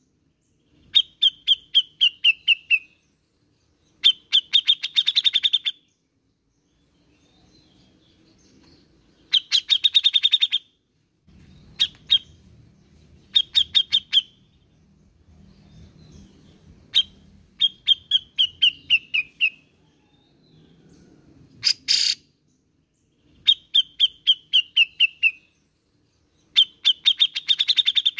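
Grey-cheeked bulbul (cucak jenggot) calling: loud bursts of rapid chattering notes, each lasting one to two seconds, some falling in pitch at the end. The bursts come every two to three seconds, with a few short single notes in between.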